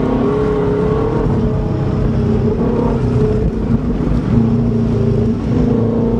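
Subaru Legacy's boxer engine running as the car is driven, its pitch wavering slightly, with a low rumble of tyre and road noise.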